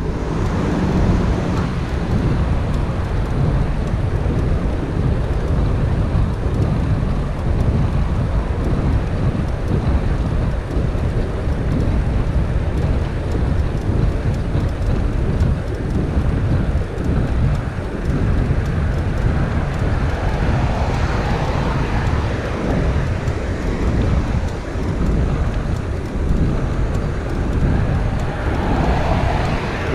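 Wind buffeting the microphone of a bicycle-mounted camera while riding at speed, a steady low rumble with no breaks.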